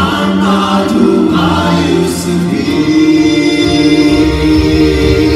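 Gospel choir singing long held chords in harmony over instrumental backing.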